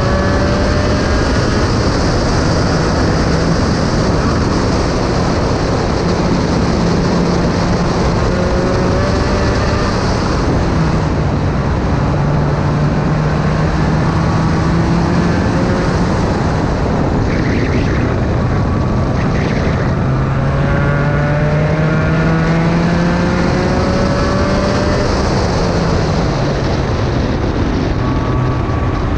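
Onboard sound of an SRF3 spec racer's engine at racing speed. Its note climbs under acceleration, steps down at gear changes and falls when braking for corners, over steady wind rush in the open cockpit.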